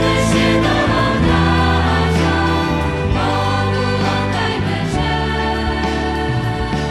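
Church choir singing, with sustained low notes of instrumental accompaniment underneath.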